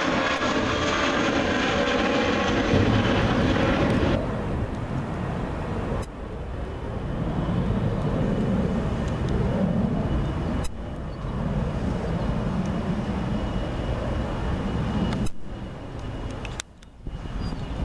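Rear-engined McDonnell Douglas airliner climbing away after takeoff, its jet engines loud with whining tones that slowly fall in pitch as it recedes. About four seconds in, the sound cuts to a lower, steadier jet rumble with a faint high whine, broken by several abrupt edits.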